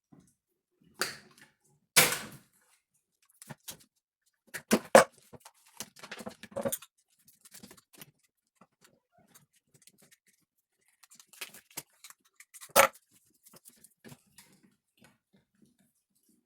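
Wiring harness and plastic relays being handled: scattered clicks, rustles and knocks, loudest in a cluster midway and in a single sharp knock near the end.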